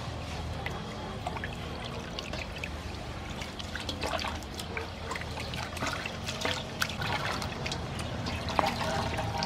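Water splashing and trickling in a metal basin as hands rub and rinse a whole raw chicken, with many small splashes. Near the end the bird is lifted out and water runs off it back into the basin.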